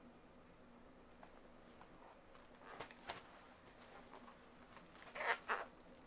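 Scissors snipping into the plastic wrapping of a parcel, with faint plastic crinkling: a couple of small sharp cuts about three seconds in and two louder snips just after five seconds in.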